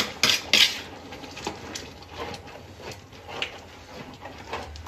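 Metal ladle stirring rice and masala in a large metal pot, scraping and knocking against the pot. A few sharp clinks come in the first second, then softer, irregular scrapes.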